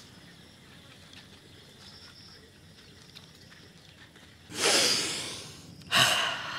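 Two sudden, loud hissing rushes of air, the first about four and a half seconds in and fading over about a second, the second about a second later, over a quiet background.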